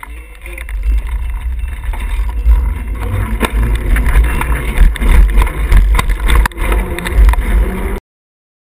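Bicycle rolling over pavement and across railroad tracks, heard through a bike-mounted GoPro's waterproof case as a heavy, muffled rumble with scattered knocks and rattles. It builds up about a second in and cuts off abruptly near the end.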